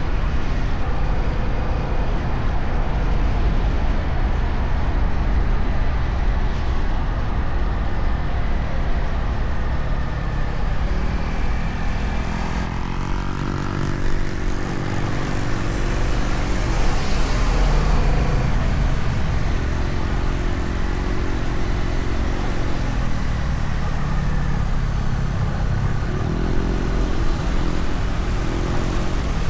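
Honda Rebel 1100 DCT's parallel-twin engine running steadily at cruise on its stock exhaust, a constant low rumble. A pitched drone comes in and fades away three times in the second half.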